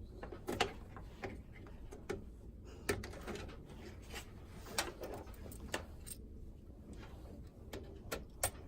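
Scattered light clicks and knocks, a dozen or so, of cables and plugs being handled and plugged back into a desktop PC.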